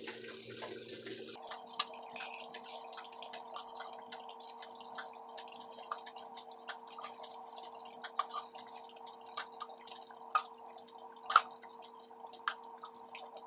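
Meatballs being set one by one with metal tongs into simmering gravy in a cast-iron skillet: scattered soft wet plops and light clicks of the tongs against a stainless steel bowl, at irregular intervals over a faint steady hum.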